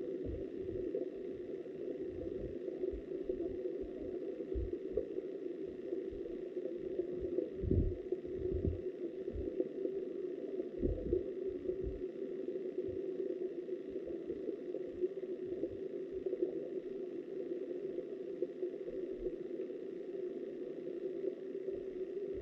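River water heard underwater through a camera housing: a steady, muffled rush, with irregular low thumps, most of them bunched around eight and eleven seconds in.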